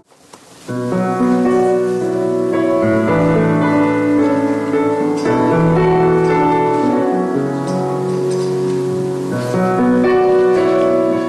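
Gentle instrumental music led by piano, starting about a second in after a brief moment of silence.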